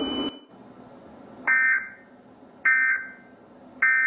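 Three short bursts of Emergency Alert System SAME data tones, the warbling digital end-of-message (EOM) code, each about a third of a second long and a little over a second apart. They signal that the tornado warning broadcast has ended.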